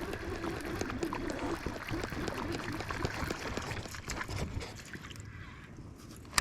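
Water splashing and trickling around a small fishing boat, with scattered small clicks and knocks. A low steady hum fades out in the first second or so, and a single sharp knock comes at the very end.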